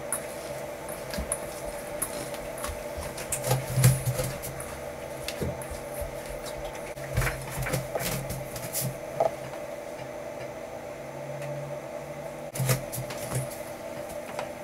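Hands punching down risen bread dough in a stainless steel bowl and lifting it out: soft handling noises with scattered knocks against the metal bowl, the loudest about four seconds in. A steady hum runs underneath.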